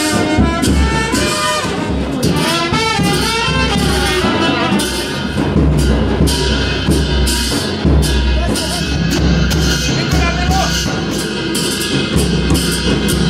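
Band music: a loud, shrill wind instrument playing a wavering melody over steady drum beats.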